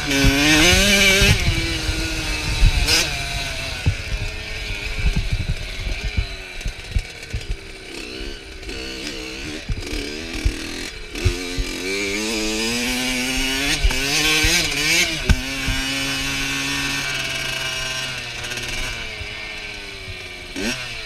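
Kawasaki KX65's small two-stroke single-cylinder engine heard from onboard, its buzzing pitch rising and falling again and again as the rider opens and closes the throttle through the gears, with sharp knocks from the bike over the rough dirt. Past the middle it holds a steady pitch for a few seconds, then drops and quietens near the end.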